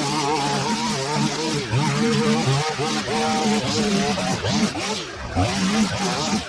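Line trimmer running and cutting grass, its pitch wavering up and down as the spinning line meets the grass, with a brief dip about five seconds in.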